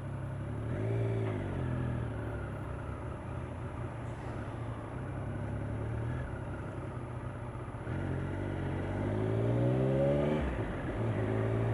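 Triumph Daytona 955i's three-cylinder engine under way. Its pitch rises as it accelerates about a second in and again from about eight seconds in, then falls away sharply near the end.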